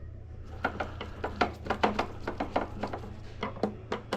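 A quick, irregular run of light clicks and taps as parts and hand tools are handled during reassembly of a power wheelchair, over a steady low hum.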